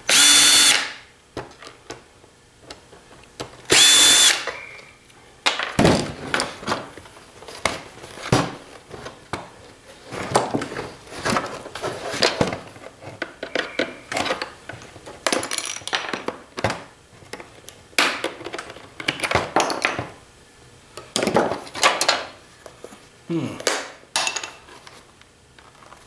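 Cordless drill/driver running in two short spurts, at the start and about four seconds in, driving out screws from a CPAP machine's plastic casing. After that come many scattered clicks, knocks and scrapes of plastic parts being pried apart and handled.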